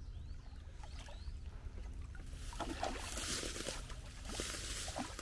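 A hooked striped bass thrashing and splashing at the water's surface near the bank, the splashing starting about halfway through in irregular bursts over a low steady rumble.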